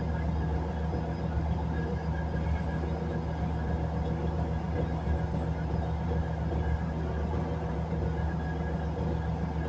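Batara Kresna railbus running, heard from inside the passenger car: a steady low engine drone and rumble with faint steady higher tones over it.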